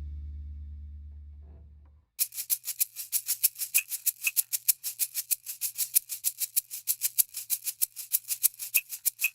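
A low note dies away over about two seconds. Then, after a moment's gap, a rattle like a maraca starts suddenly and is shaken steadily at about five to six shakes a second.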